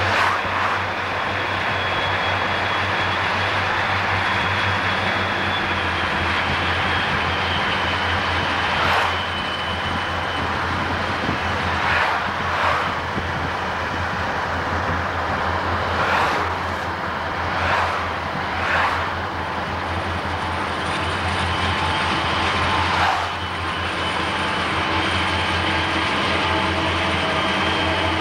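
Steady road and engine drone of a car travelling at speed, heard from inside the cabin, mixed with a diesel freight train running alongside. Several short swishes of noise come and go at irregular intervals.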